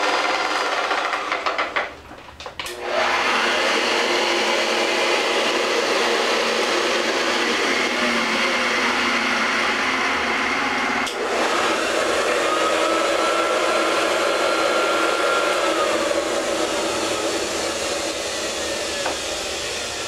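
Several Hoover upright vacuum cleaners running at once, their motors whining together in a dense, steady drone. The sound drops away briefly about two seconds in as machines are switched off and on. About halfway through, a switch clicks and a motor's pitch rises, holds, then falls a few seconds later.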